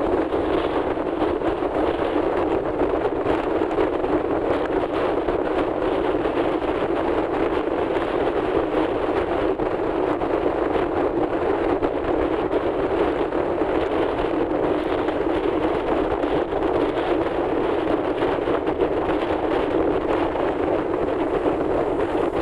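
Steady rushing wind and road noise from a moving vehicle, with wind buffeting the microphone.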